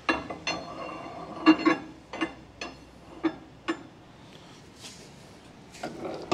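A series of sharp metallic clinks and knocks, several ringing briefly, about eight in the first four seconds and a couple more near the end: steel parts and stock handled in the vise and table of a Hydmech bandsaw.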